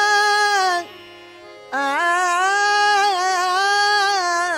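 A woman's voice sings Hindustani classical vocal music in the Rampur gharana style. She holds a steady note, breaks off for about a second, then comes back in with slow, sweeping glides between notes. A faint steady drone runs underneath.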